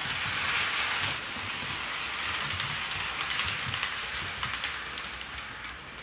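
HO scale model diesel locomotive and flatcars running along the track: a steady rattling hiss of wheels and gearing with a low motor hum and small clicks, fading near the end.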